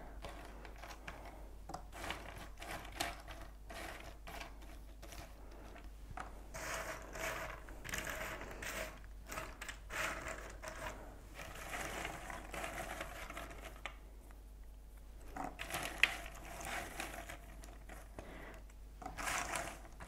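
Two Bird Press cardboard jigsaw puzzle pieces being sifted and shuffled by hand in puzzle trays: a faint, continuous clicking and rustling of many small pieces sliding over one another, with one sharper click about three-quarters of the way through.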